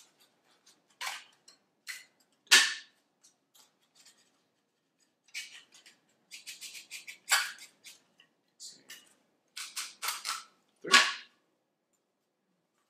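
Plywood pieces pinned together with brads being twisted apart one by one: sharp snaps and clicks as the wood and nails let go, the loudest three coming about 2.5, 7.5 and 11 seconds in, with lighter clicks of the pieces being handled and set down between them.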